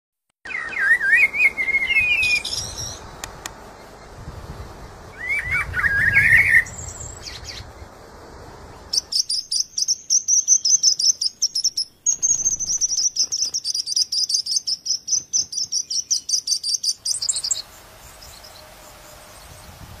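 Small birds chirping: short whistled phrases that rise and fall, once in the first few seconds and again around six seconds, then a long run of fast, high-pitched chirps from about nine to seventeen seconds.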